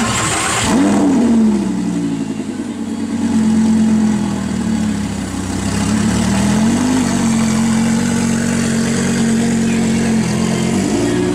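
Lamborghini Gallardo LP560 V10 with an Armytrix valvetronic exhaust, blipped once about a second in, the revs climbing and dropping back to a steady idle. It gives a short light blip near the middle and rises again near the end.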